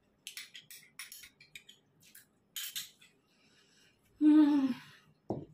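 Metal spoon clicking and scraping against a small bowl several times while eating, then a short, loud hummed 'mmm' of enjoyment about four seconds in.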